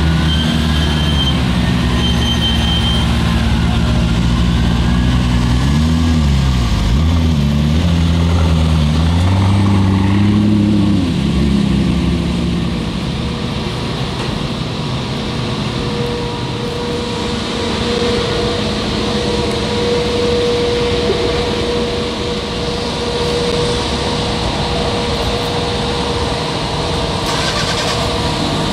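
McLaren MP4-12C's twin-turbo V8 idling, with several quick revs in the first dozen seconds. After that the engine note fades and a steadier hum with a constant tone takes over.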